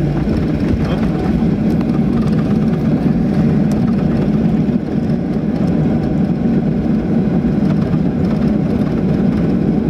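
Steady cabin noise inside a Boeing 737-700 taxiing after landing: the engines running at taxi power, heard from a window seat over the wing as an even, low rumble.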